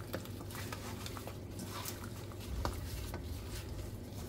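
Gloved hand squishing and turning raw chicken with spices in a stainless steel bowl: soft wet squelches with scattered light clicks and knocks against the bowl.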